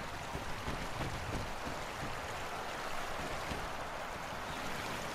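Steady rush of running water with no distinct events.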